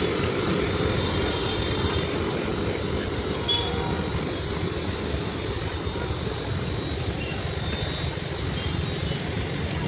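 Steady roadside noise with passing traffic.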